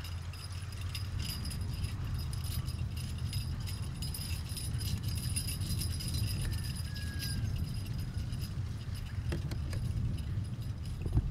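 Harness chains and tack jingling and a horse-drawn riding implement rattling as a team of two Belgian draft horses pulls it across a dry field, over a steady low rumble. A sharper clunk comes near the end.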